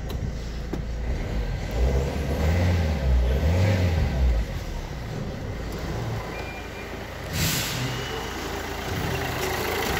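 Renault 1.5 dCi K9K four-cylinder turbodiesel running. It is louder for a couple of seconds early on, then settles to a steady idle. A short rush of noise comes about seven seconds in.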